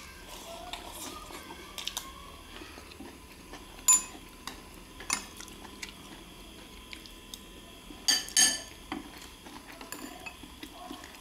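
Metal spoons clinking and scraping against ceramic bowls and a plate during a meal, with a sharp clink about four seconds in and two loud clinks close together about eight seconds in.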